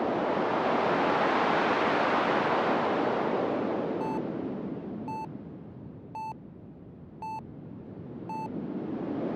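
A rushing noise that swells and fades like a slow wave, with short, clear electronic beeps repeating about once a second from about halfway in as the rush dies down, like sonar pings.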